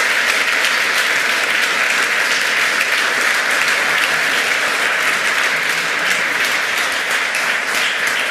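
Audience applauding: a dense, steady wash of clapping.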